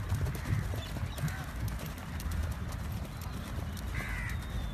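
Horses cantering on a sandy track: a steady run of dull hoofbeats over a low rumble.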